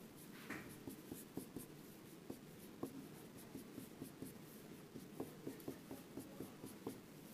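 Dry-erase marker writing on a whiteboard: a faint, irregular run of short taps and strokes as single letters are written one after another.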